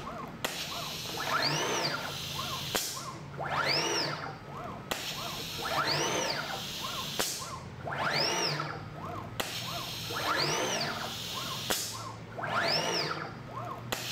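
The motors of an automated suction pick-and-place gantry whine up and then down in pitch with each move, about once every two and a half seconds. A hiss runs under each move and cuts off with a sharp click between moves.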